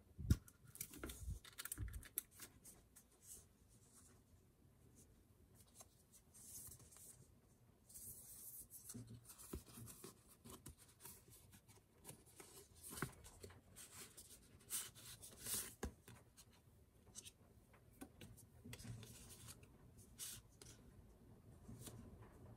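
Quiet handling of cardboard boxes, paper inserts and plastic-wrapped items: intermittent rustling, sliding and light taps, with a sharp knock of the box just at the start.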